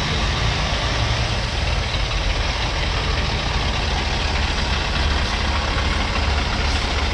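A large engine running steadily at an even speed, with a constant low rumble under a broad hiss of noise.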